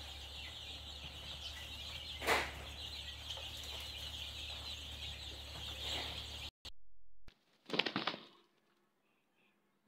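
Many chicks peeping together in a brooder, a dense high-pitched chorus with a low hum beneath and one sharp click about two seconds in. It cuts off suddenly, followed about a second later by a brief burst of wing flapping from two roosters sparring, then near silence.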